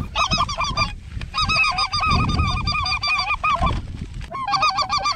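White-fronted geese (specklebellies) calling: rapid, high-pitched, overlapping yelps in three quick runs, each broken by a short pause.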